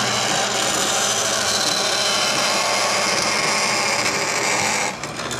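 Vertical bandsaw cutting an aluminum plate: a steady high hiss of the blade in the metal over the saw's running hum. The cutting noise drops off abruptly near the end while the saw keeps running.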